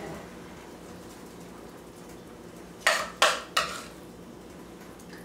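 A metal spoon clinks sharply against a stainless steel pot three times in quick succession about three seconds in, as mashed sweet potato is scooped out.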